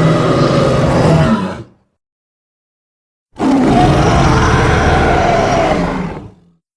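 Giant gorilla roar sound effects: one roar fades out about two seconds in, and after a moment of dead silence a second rough, deep roar starts and fades away near the end.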